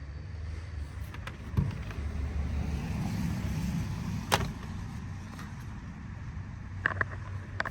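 Plastic trim panels and wiring being handled in a minivan's rear panel: a low, steady rumble broken by a few sharp clicks and knocks, the loudest about four seconds in and two more near the end.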